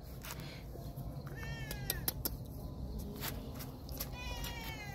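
Cat meowing twice, two thin, high meows that each fall in pitch, with a few faint clicks around them.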